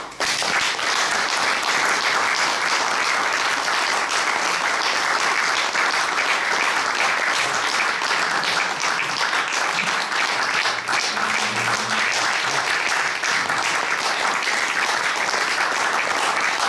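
Audience applauding: a round of clapping that starts abruptly and holds steady.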